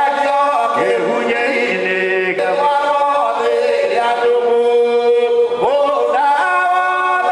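A small group of men's voices singing a hymn together without instruments, in long held notes that slide from one pitch to the next.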